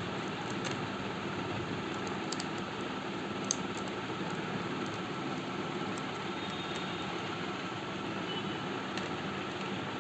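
Steady background hum and hiss with a few faint, sharp clicks, the clearest about three and a half seconds in, typical of small plastic and metal laptop parts and screws being handled.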